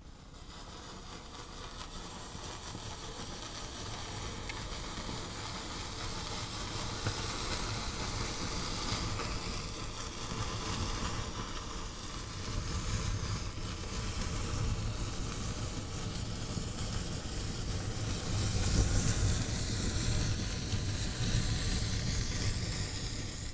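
Match heads flaring one after another in a chain reaction through a sculpture of about 2,500 matchsticks, heard as a continuous hiss and sizzle. It grows louder as the fire spreads and is loudest late on, when the whole piece is burning.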